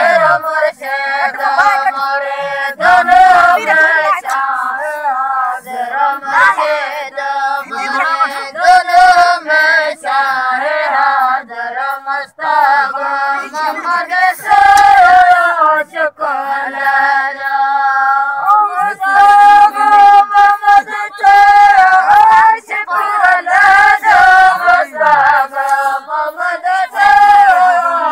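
Women's voices singing a Sindhi sehra (lada), a folk song in a slow melody with long held, wavering notes.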